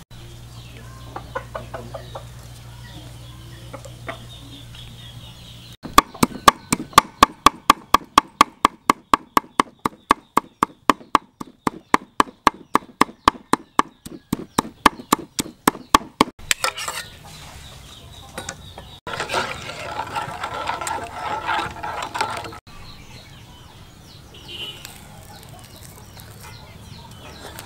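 Steel cleaver chopping snail meat on a round wooden chopping block: a fast, even run of knocks, about four a second, for some ten seconds. Chickens cluck now and then.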